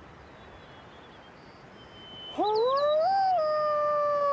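A man imitating a wolf howl through cupped hands. A little past halfway, one long howl starts, sweeps up in pitch, peaks briefly, then holds and dips slightly near the end.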